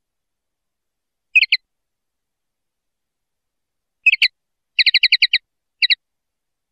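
Common linnet singing in short twittering phrases: a quick double note about a second in, then a rapid run of about eight clipped notes a little before five seconds, and a last double note near the end, with silence between the phrases.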